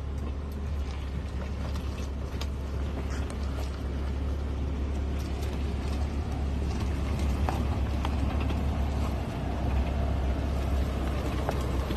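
Maserati Levante SUV creeping down a steep muddy dirt track, its engine running low and steady while the tyres crunch and click over stones and ruts. It grows gradually louder as it comes closer.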